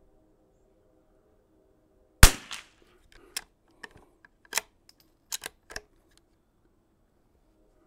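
A single shot from a Kimber Model 82 Super America bolt-action .22 LR rifle about two seconds in, followed by a run of lighter metallic clicks and clacks over the next few seconds as the bolt is worked.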